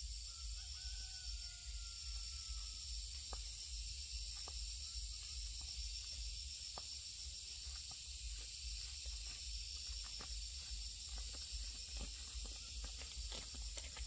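Steady high-pitched insect chorus over a low rumble, with scattered light clicks and a faint drawn-out whistle in the first few seconds.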